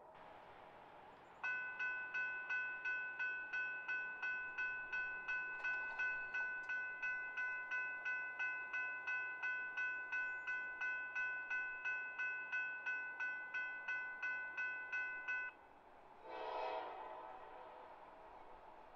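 Railroad grade-crossing warning bell ringing at about two and a half strikes a second for some fourteen seconds, then cutting off suddenly. Near the end, a short blast of an approaching train's horn.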